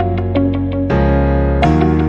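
Background music: an electric piano playing quick repeated notes, about five a second, over sustained low chords that change about a second in.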